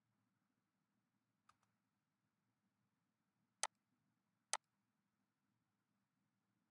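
Computer mouse button clicking: a faint double tick, then two sharp single clicks about a second apart, over near silence.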